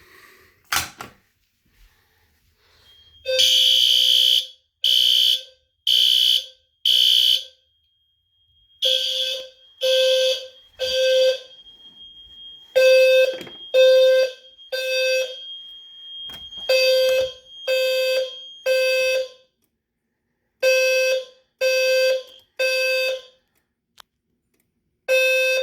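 Fire-alarm horns sounding the temporal-three evacuation pattern: a low-frequency sounder strobe's low square-wave tone near 500 Hz, joined by a higher-pitched horn tone, in groups of three beeps with a pause between, the first group running to four. A sharp click comes just under a second in, before the alarm starts.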